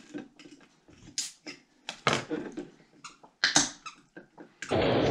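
A carbonated Milkis soda being handled and opened, heard as a series of sharp clicks and knocks. A loud burst of music cuts in suddenly near the end.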